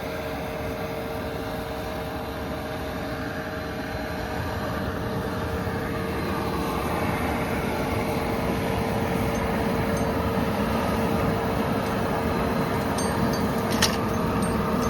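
Diesel-fired foundry furnace's air blower running steadily with a constant whine, the burner's fuel just shut off. It grows slightly louder over time, with a couple of sharp clicks near the end.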